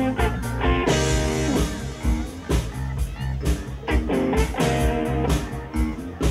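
Live band playing an instrumental passage with a steady beat: electric guitar, electric bass and drum kit.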